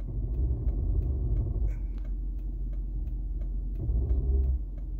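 Low rumble inside the cabin of a Lexus LS460 idling at a stop, with a steady ticking about three to four times a second. A louder rumble swells briefly about four seconds in.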